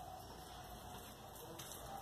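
Faint wet squelching of clear-glue-and-water slime squeezed and kneaded between hands, over a low steady hiss.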